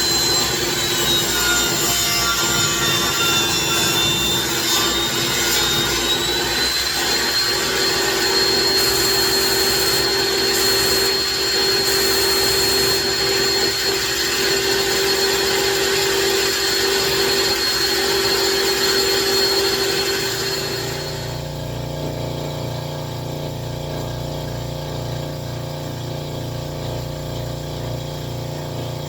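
Electric power saw running and cutting wood, its motor whine dipping under load and then recovering. About 21 s in the cutting stops and a quieter, steady machine hum with a regular low pulse carries on.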